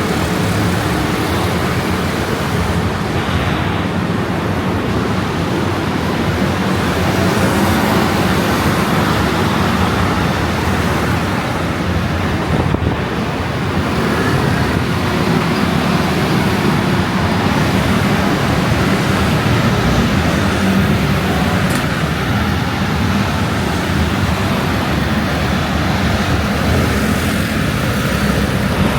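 Steady road and wind noise: a dense, even rumble with no distinct events.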